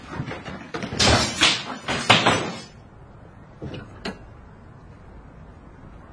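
A door banged and scraped open in a quick flurry of loud knocks, then two light clicks about a second later.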